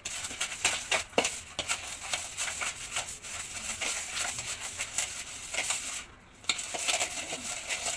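A metal spoon beating soft butter in a plastic mixing bowl, creaming it by hand: a quick, irregular run of scraping clicks and taps, with a brief pause about six seconds in.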